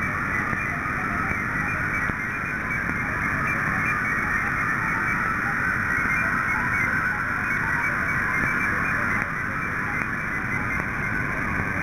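Shortwave receiver audio on 7.045 MHz carrying a ROS digital-mode signal that is being decoded: a steady rushing band of sound with quick short tones hopping about in pitch, over radio static.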